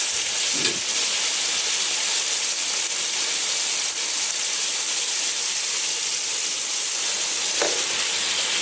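Pot of onion, sweet pepper and tomato seasoning sizzling and steaming on the stove in a steady hiss, with a couple of brief scrapes from stirring.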